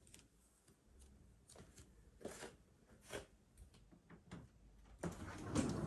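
Faint scattered clicks and soft rustles, turning into louder, continuous rustling about five seconds in.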